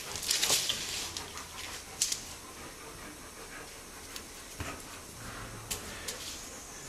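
Sun bears scuffling on a concrete floor: scrapes and sharp taps of claws and pads, busiest in the first second, with a lone click about two seconds in and a dull thump past halfway.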